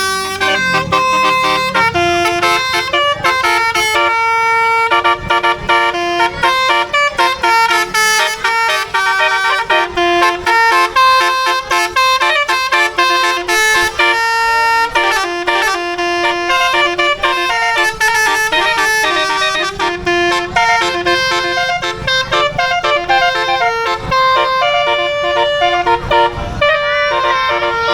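Bus telolet horn playing a tune: several air-horn trumpets sound together in chords that change pitch every fraction of a second, with short breaks between phrases.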